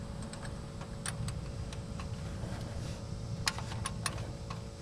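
A few scattered light metallic clicks as a wrench works the clutch slave cylinder's bleeder screw under a Ford F-150, over a low steady rumble.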